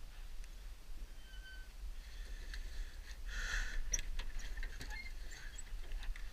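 Handling noises in a small fishing boat: scattered light clicks and knocks and clothing rustle as a fish and gear are moved about, with a short hiss about three and a half seconds in, over a steady low rumble.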